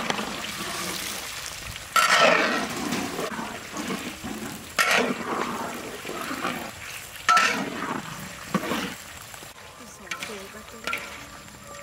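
Rolled potato pieces deep-frying in a wok of hot oil, sizzling steadily, with a metal spatula stirring and scraping through them in four loud strokes. The sizzle grows quieter near the end.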